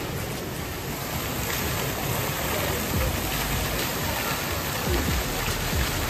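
Indoor fountain's water jet falling and splashing: a steady rush of water, a little louder after the first couple of seconds.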